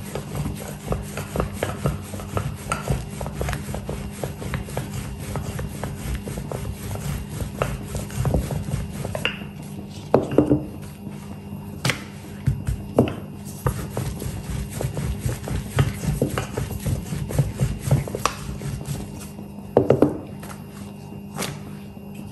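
Wooden rolling pin rolling out a stuffed paratha on a silicone mat: repeated light knocks and rubbing, with a few sharper knocks from the pin against the board, over faint background music.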